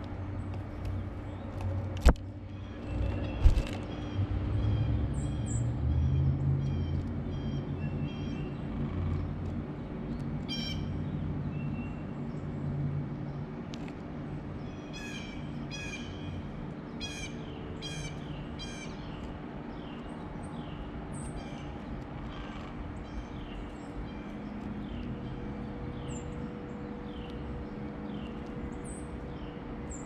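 Wild songbirds chirping outdoors, in runs of quick, high, repeated notes. Two sharp knocks come near the start, the loudest sounds, and a low rumble sits underneath.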